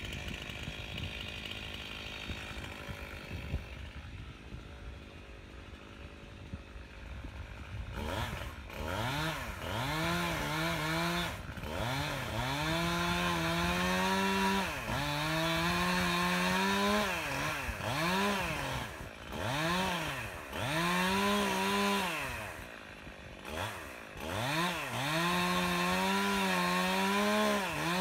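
Stihl chainsaw running at low speed for the first several seconds, then revved hard again and again from about eight seconds in, its engine note rising and sagging with each surge as the chain bites into an oak limb.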